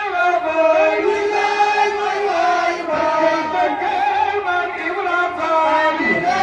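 A group of voices chanting together in unison, singing a steady melody of long held notes.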